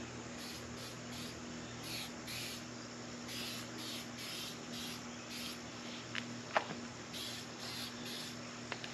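Insects chirping in short high pulses, about two to three a second, over a faint steady hum. A couple of sharp clicks come about two-thirds of the way through.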